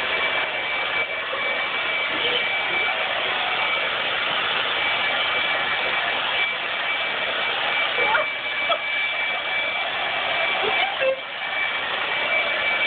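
Blow dryer running steadily: a constant rush of air with a thin high whine.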